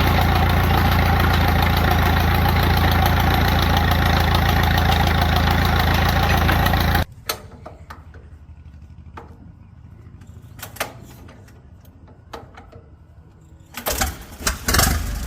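Allis-Chalmers 6-12 tractor engine running steadily, then stopping abruptly about seven seconds in. Scattered light clicks and knocks follow, and a louder burst of clattering comes near the end.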